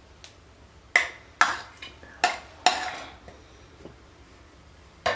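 Metal spoon clinking and scraping against a bowl while scooping out cooked chicken pieces, about five sharp clinks in quick succession between one and three seconds in.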